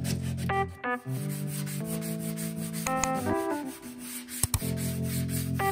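Sandpaper on a hand sanding grip rubbed in quick strokes along the bare wood of a cabinet frame, a fine rasping, over background music with held chords. Two sharp clicks about four and a half seconds in.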